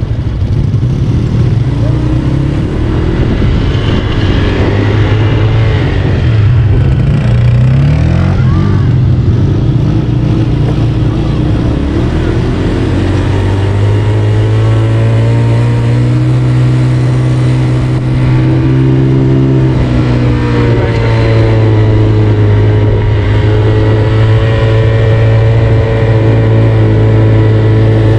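Four-wheel ATV engine running while being ridden, its pitch rising and falling with the throttle in the first half, then holding a steadier note from about halfway.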